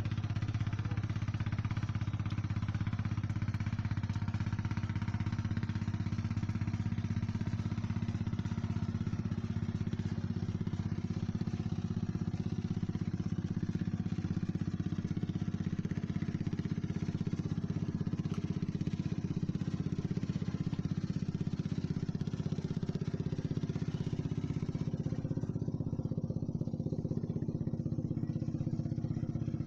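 A small engine running steadily at one constant speed, a low even hum with no revving.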